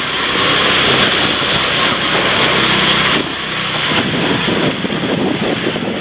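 A small motorbike engine running close by in a narrow alley. Its steady noise drops away about three seconds in.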